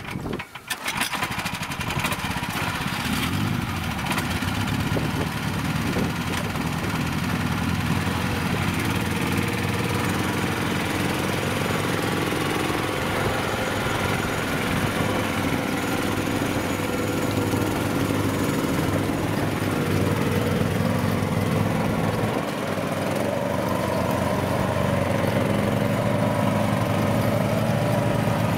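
Small engine of a homemade low-pressure-tyre swamp buggy running under load as it churns through bog, its pitch wavering a little.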